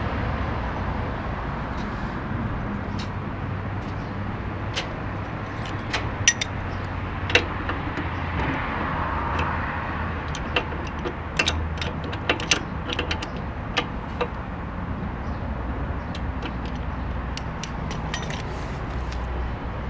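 Steady hum of street traffic, with scattered light clicks and taps from hand work under the motorcycle, thickest in the middle.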